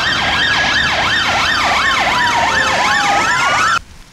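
British police car's siren sounding a fast up-and-down yelp, about two to three sweeps a second, with a slower wailing tone gliding down and then back up across it. It cuts off suddenly near the end.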